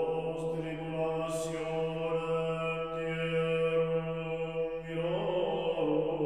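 Chant-like background music: long held notes over a steady low drone, the notes changing about five seconds in.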